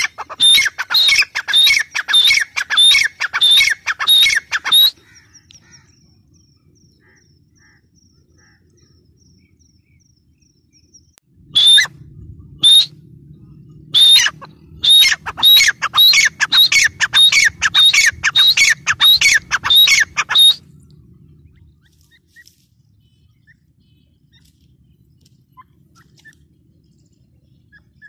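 Grey francolin (teetar) calling: a loud series of sharp repeated notes, about two a second, in two bouts of roughly five and nine seconds with a pause between them.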